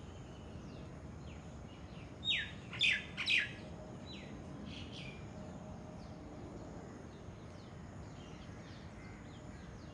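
Small birds chirping: short, quick chirps that fall in pitch, repeated faintly throughout, with a louder burst of three about two to three and a half seconds in, over a steady outdoor hiss.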